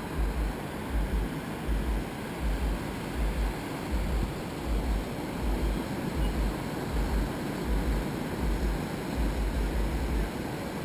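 Surf washing onto a sandy beach as a steady wash of noise, with wind buffeting the microphone in repeated short low rumbles.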